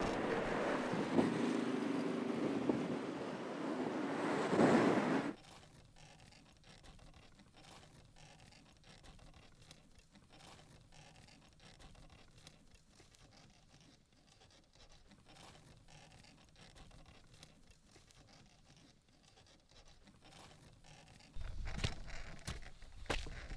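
Road traffic: a car passing, its tyre and engine noise swelling and then cutting off abruptly about five seconds in. A long faint stretch with light rustling follows. Near the end, the spoked wheels of an old pram roll over a sandy dirt track with a low rumble and crackle.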